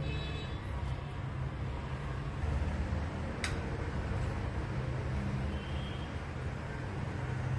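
Steady low background rumble with a single sharp click about three and a half seconds in.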